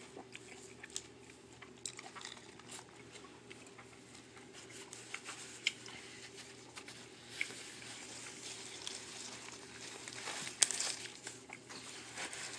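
Faint eating sounds: a person chewing and crunching food, with scattered small clicks and crinkles and one sharper click about ten and a half seconds in.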